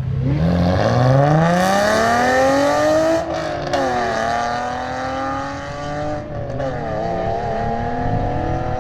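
Sports car engine accelerating hard, its pitch climbing for about three seconds, then dropping sharply as at a gear change and pulling up again through the gears.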